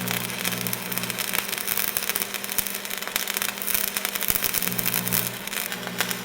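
Machine sound effect: a low motor hum that swells and drops out in pulses over a dense, rapid crackling rattle.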